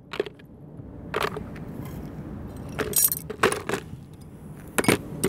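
Rusty scrap-metal finds (nails, a hook, a spoon) clinking and tapping on concrete as they are picked up and set down. There are about half a dozen sharp, irregular clinks, with a small cluster around the middle.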